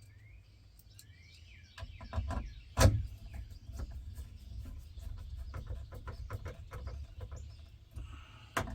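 Birds chirp faintly at first, then a run of small clicks and knocks, with one louder knock about three seconds in, as screws are tightened into a plastic switch box.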